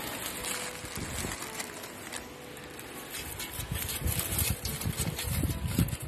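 Wind buffeting the microphone: a steady hiss with gusty low rumbles that grow stronger in the second half.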